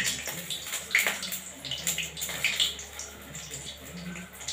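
A hand squishing and slapping thick, wet pakora batter in a plastic bowl, with irregular squelches.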